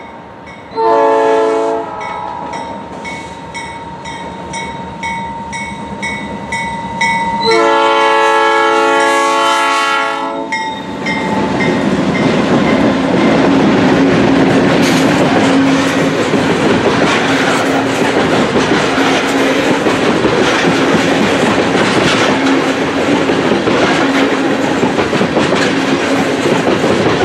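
Freight train of loaded oil tank cars led by CN diesel locomotives: the lead locomotive's horn sounds a short blast of several notes together about a second in and a longer one about seven seconds in. Then the locomotives pass and the tank cars roll by with a steady rumble and rhythmic wheel clickety-clack.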